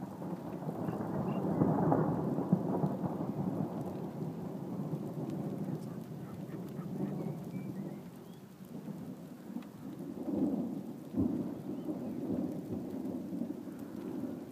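Thunder rumbling: a long roll swells over the first two seconds and slowly fades, then a second roll builds about ten seconds in, with a short sharper clap about eleven seconds in.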